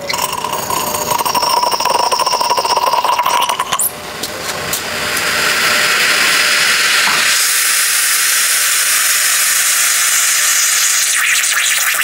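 Odyssey Argos lever espresso machine's group head hissing as hot water and steam are bled through it with the lever pulled down. About seven seconds in the hiss turns higher and steadier.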